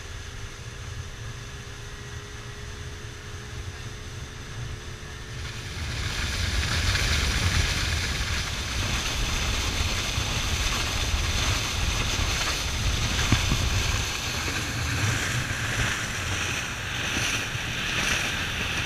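Boat running at speed: wind and a faint steady engine hum at first. About six seconds in, a much louder rushing of water spray and wind along the hull takes over and continues.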